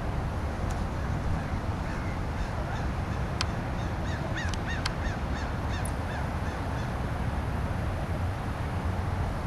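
Birds calling: a quick series of short, harsh calls, several a second, between about two and six seconds in, over a steady low rumble.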